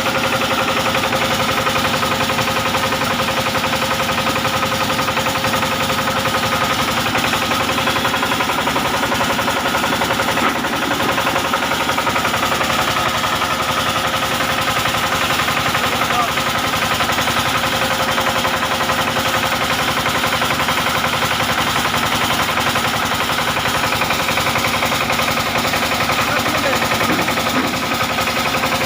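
Homemade rice milling machine running steadily: a fast, even mechanical rattle with a steady whine over it.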